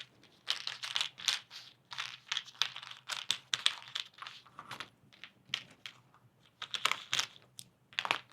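Cardboard jigsaw puzzle pieces being handled and turned over on a tabletop: irregular light clicks and short rustles.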